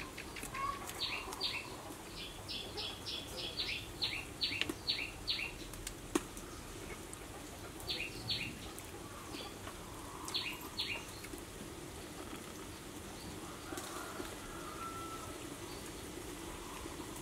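A small bird chirping in quick runs of short, sharp, falling notes, in three bouts, over a steady low background hum.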